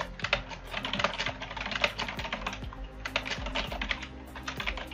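Computer keyboard typing: quick runs of key clicks with short pauses between words.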